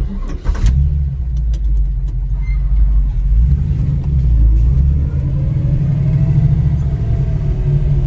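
1964 Chevy II Nova engine running as the car drives off, heard from inside the cabin: a steady low rumble whose pitch rises and eases off again in the second half. No belt squeal, since the freshly tightened alternator belt no longer slips.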